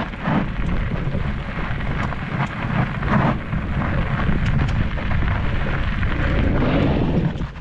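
Wind buffeting the camera microphone on a mountain bike riding fast down a dirt singletrack, with the tyres and frame giving short clicks and rattles. It eases off near the end as the bike slows.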